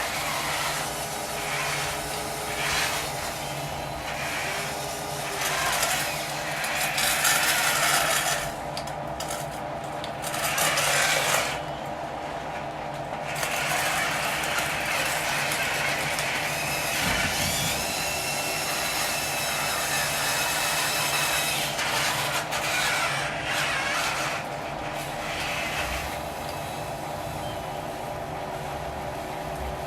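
Radio-controlled construction machine running: a steady electric motor and hydraulic pump whine, with louder bursts of scraping and grinding, strongest about six to twelve seconds in, and a whine that changes pitch near the middle.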